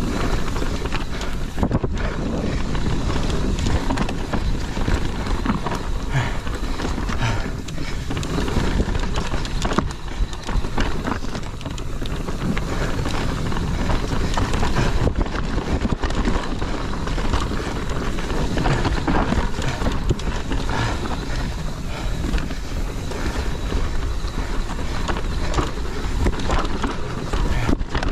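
Mountain bike descending a rough dirt trail at speed: steady wind rush on the microphone with tyre noise and frequent knocks and rattles from the bike over roots and rocks.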